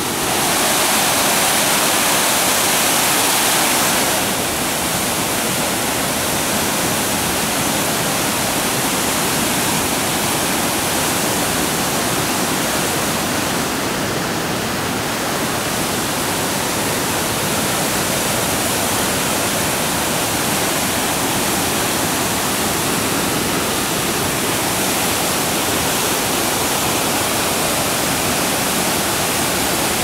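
A river in flood rushing through rapids: a loud, steady noise of churning floodwater, a little louder in the first four seconds.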